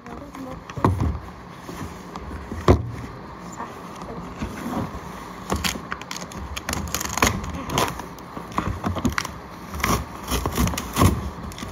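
Cardboard shipping box being handled and opened close up: scraping and rustling of cardboard, with many sharp knocks and a tearing flap.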